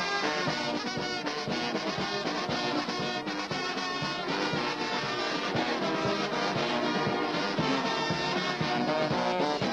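Brass band music with a steady beat: sousaphones, tubas and trombones playing together.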